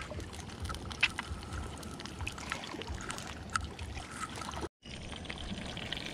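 Oil sizzling and crackling in a small frying pan as an egg fries, with scattered small pops. After a brief cut near the end, small whole fish sizzle in the pan with a steadier hiss.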